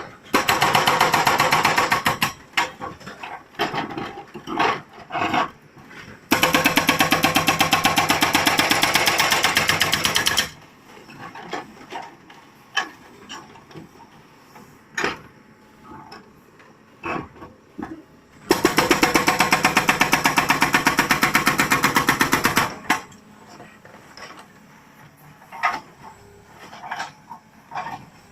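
Hydraulic rock breaker on a JCB 3CX backhoe hammering in three bursts of rapid, evenly spaced blows: a short one at the start, then two longer ones of about four seconds each. Between the bursts there are scattered knocks and clatter.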